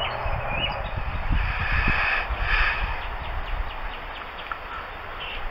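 A few bird calls in the middle, over outdoor hiss and wind rumbling on the microphone.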